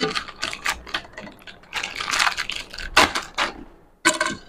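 Crinkling of a plastic instant-noodle packet as crushed raw noodles are shaken out of it onto a plate, in irregular crackly bursts. It breaks off briefly near the end.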